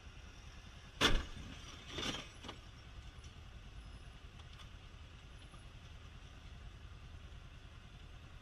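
A car collision: a loud bang about a second in, then a softer thump about a second later, over the low steady road noise of a moving car.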